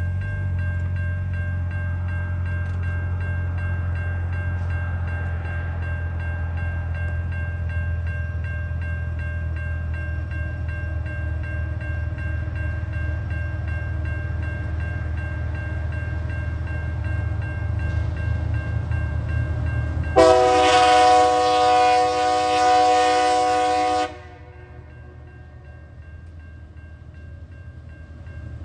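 Diesel freight train approaching a level crossing: a steady low rumble under the crossing's warning bell. About twenty seconds in, the locomotive sounds its multi-tone horn in one long blast of about four seconds.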